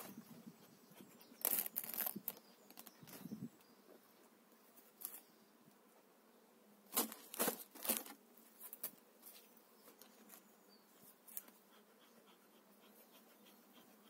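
Honeybees buzzing over an open hive, with short puffs from a bellows smoker coming in bunches, a few near the start and another bunch about halfway through.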